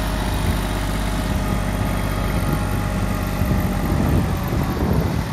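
Kubota GB200 compact diesel tractor's engine running steadily as the tractor drives along potato rows pulling a potato hiller.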